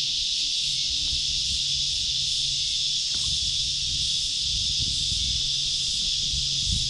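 Dense chorus of cicadas making a loud, steady, high-pitched drone without a break. An irregular low rumble runs underneath.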